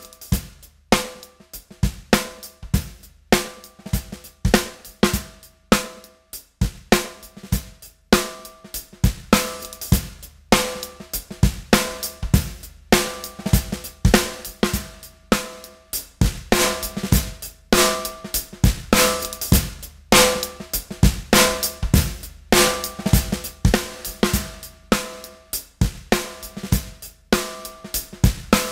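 Recorded drum kit playing a steady beat with kick, hi-hat and a ringing snare, played back through a stereo 1176-style (MS76) compressor set to slow attack and fast release to bring out the snare's punch.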